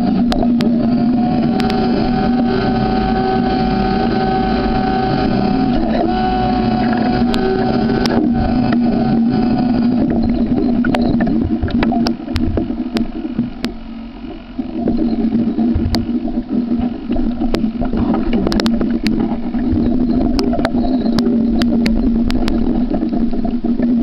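Boat motor running with a steady pitched hum, dropping briefly in level about halfway through, with scattered sharp clicks and knocks over it.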